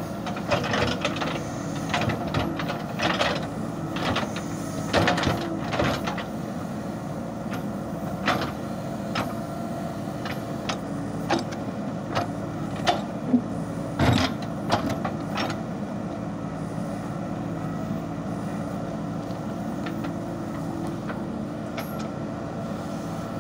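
JCB backhoe loader's diesel engine running steadily under load as the backhoe digs, with irregular clanks and knocks from the bucket and arm working stony soil, frequent through the first two-thirds and loudest about fourteen seconds in, then mostly the steady engine toward the end.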